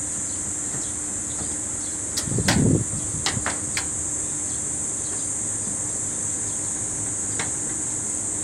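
Sharp metallic clicks and taps from a screwdriver working the screws of a floor-standing air conditioner's metal panel: a cluster about two to four seconds in, and one more near the end. A louder dull bump comes about two and a half seconds in. A steady high hiss and a faint low hum run underneath.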